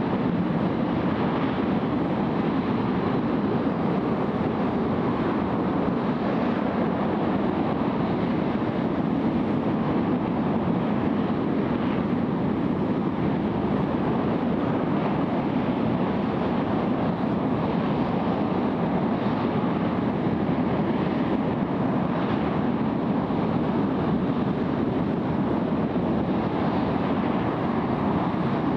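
J-2X liquid-hydrogen/liquid-oxygen rocket engine firing steadily on a test stand: a continuous rushing noise that holds the same level throughout.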